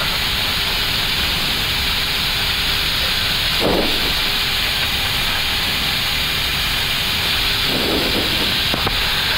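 Steady hiss of cockpit noise, airflow and engines at idle, in an Airbus A321neo flight deck as the airliner taxis slowly after landing, with a faint steady hum underneath. Two brief soft sounds come at about four and eight seconds.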